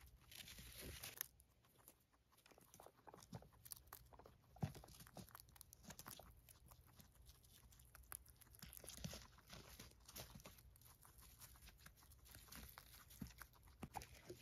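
Guinea pigs eating hay: faint, quick crunching and tearing of dry hay stems as they bite and chew, with light rustling of the hay.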